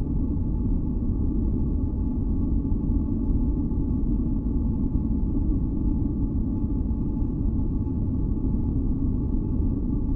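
Steady deep rumbling noise of an ambient white-noise track, with faint held tones floating above it; it does not change.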